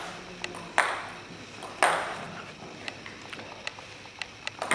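Table tennis ball bounced repeatedly before a serve: light, sharp clicks a few times a second. Two louder, short noisy sounds come about one and two seconds in.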